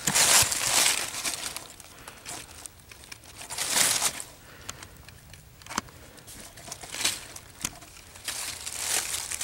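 Dry fallen leaves crunching and rustling underfoot in several separate bursts, with a few sharp clicks between them.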